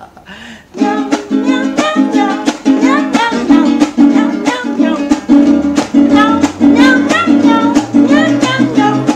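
A small acoustic guitar-like string instrument strummed in a steady, lively rhythm, starting about a second in.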